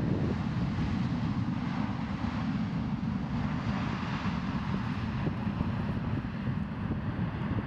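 A Boeing 777-300ER's GE90 jet engines make a rushing roar as the airliner rolls out on the runway after touchdown. The hiss swells about halfway through, and wind rumbles low on the microphone throughout.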